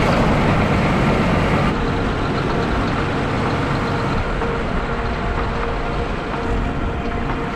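A vehicle running, under a dense, steady rushing noise; a faint steady hum joins about halfway through.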